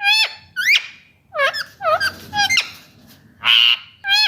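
Indian ringneck parakeet calling with a quick series of about seven short, shrill squawks and chirps that sweep up and down in pitch, with a harsher screech about three and a half seconds in.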